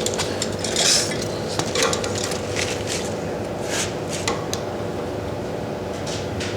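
Scattered metallic clinks and clicks of tools and brass fittings being handled, over a steady low hum.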